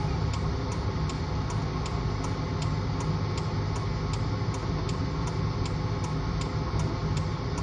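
Car cabin noise: steady engine and road rumble, with the turn-signal indicator ticking evenly at about three ticks a second.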